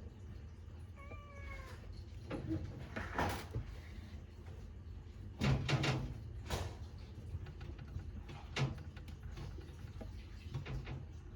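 A cat meows once, a short, slightly falling call about a second in. Several knocks and clatters follow, the loudest cluster around the middle.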